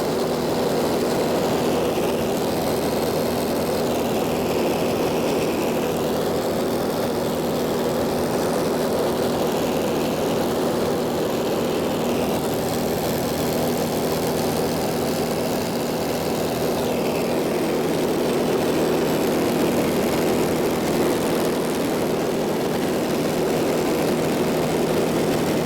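Steady drone of a light propeller airplane's engine and propeller heard from inside the cabin in level cruise, holding one even pitch throughout.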